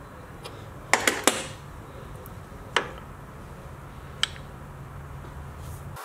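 Metal clinks and knocks of a lathe steady rest being set on the lathe bed and closed around a plastic rod: a quick cluster of clinks about a second in, then single knocks near three and four seconds, over a steady low hum.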